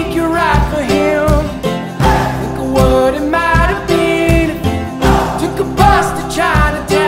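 Background song with acoustic guitar, a steady beat and a singing voice.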